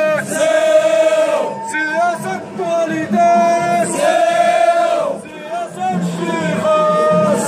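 A crowd of men chanting a slogan in unison, in long drawn-out sung phrases that repeat every few seconds.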